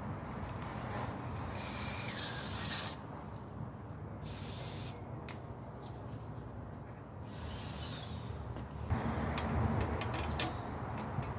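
Aerosol spray paint can hissing in three short bursts, the first about a second and a half in and the last near eight seconds, over a steady low rumble.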